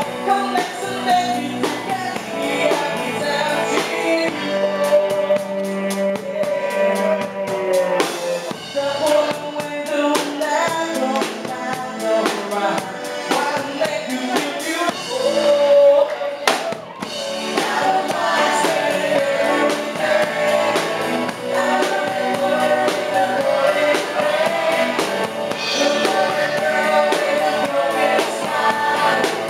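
Live band playing a song, with a man and a woman singing into microphones over drums and keyboard.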